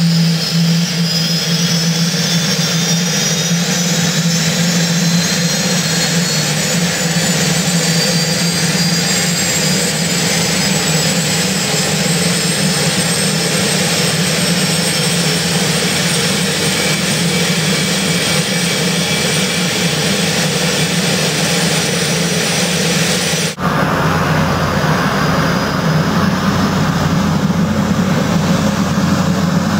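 Soloy turbine engine of a Cessna Ag Husky spooling up on start, a high whine rising slowly and steadily as the propeller comes up to speed. About three-quarters of the way through, the sound cuts abruptly to the turbine running steadily as the aircraft taxis.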